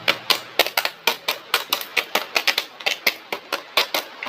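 Rapid, irregular clicking and tapping, several sharp clicks a second, like plastic toy pieces being handled and snapped.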